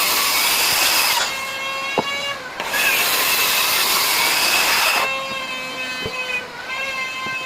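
Power tool running. Stretches of loud hiss alternate with stretches of a steady whine, the whine coming in about a second in and again about five seconds in, with a few sharp clicks.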